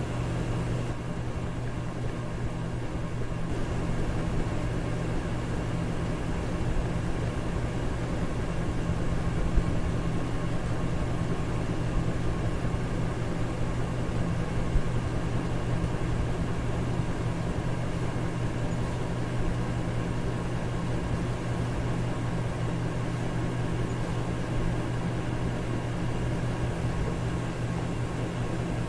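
Electric fan running steadily: an even whoosh of moving air over a low motor hum.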